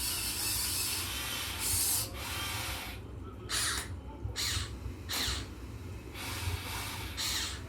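Electric motors of a Huina 1580 all-metal RC excavator whirring in a series of short high-pitched bursts, the first one longer, some bursts sliding in pitch as the motors speed up or slow down.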